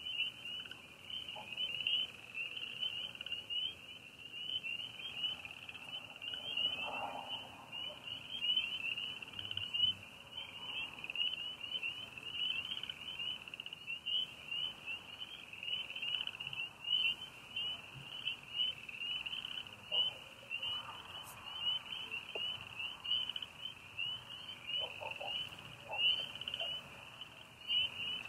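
Night chorus of frogs and crickets: many overlapping high chirps merging into a steady, unbroken shrill.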